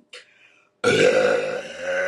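A woman letting out a long, loud burp that starts about a second in, after a brief faint sound near the start.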